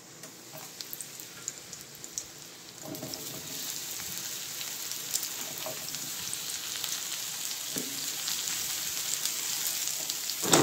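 Sliced baby bella mushrooms being dropped by hand into hot sesame oil in a frying pan, sizzling and crackling. The sizzle grows louder about three seconds in as more mushrooms go into the pan.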